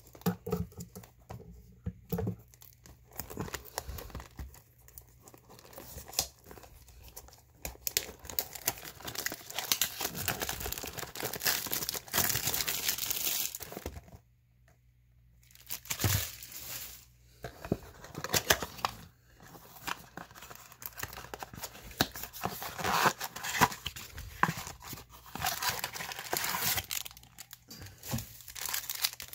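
Cellophane shrink wrap crinkling and tearing as it is stripped off a cardboard trading-card blaster box, then the box opened and the packs inside rustling as they are pulled out. There is a brief pause about halfway through.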